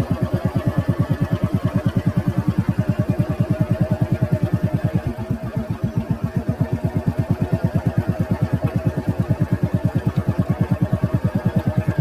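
Engine of a moving vehicle running at a steady speed, a low regular thumping of about seven pulses a second.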